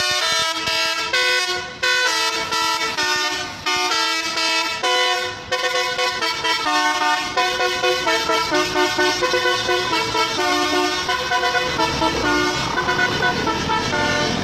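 Telolet horn, a multi-trumpet musical air horn, playing a tune of held notes that jump from pitch to pitch, breaking into quick repeated short notes in the second half.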